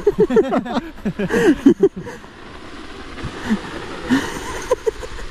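People's voices: quick, excited talk or laughter for the first two seconds, then a few scattered words over a steady rushing background.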